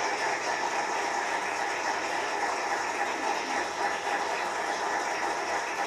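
Studio audience applauding: a steady, dense clapping, heard through a television's speaker.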